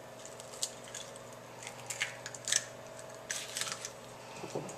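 Wooden spoon stirring a thick, wet zucchini and cream-cheese mixture in a glass bowl as an egg is mixed in: scattered light clicks and scrapes against the bowl.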